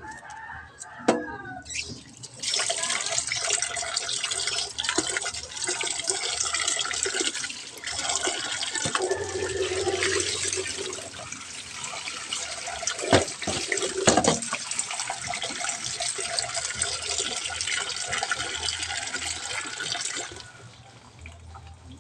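Water running from a tap into a sink as a steady hiss. It starts about two seconds in and cuts off shortly before the end, with a couple of sharp knocks partway through.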